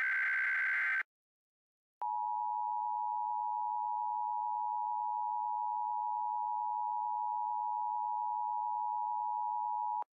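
The end of a SAME digital header burst, a short buzzing data squawk, stops about a second in. After a second's pause, the NOAA Weather Radio 1050 Hz warning alarm tone sounds as one steady tone for about eight seconds, then cuts off. Together they signal a severe thunderstorm warning alert.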